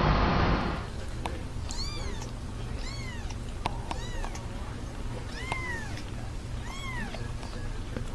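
A cat meowing over and over: about five high-pitched meows, each rising then falling, roughly one a second, with a few faint clicks between them. A loud rushing noise cuts off in the first second.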